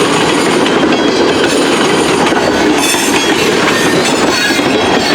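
Freight cars of a slow-moving mixed freight train rolling past: a loud, steady rumble of steel wheels on rail, with brief faint high-pitched wheel squeals about three seconds in and again near the end.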